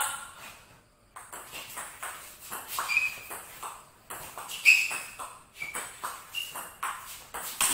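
Table tennis rally: a ping-pong ball clicking off the bats and bouncing on the table in quick, irregular alternation, starting about a second in after a short pause before the serve.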